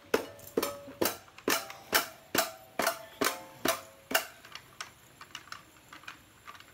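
A handheld fidget toy clicking in a steady rhythm, about two clicks a second. The clicks grow fainter after about four seconds.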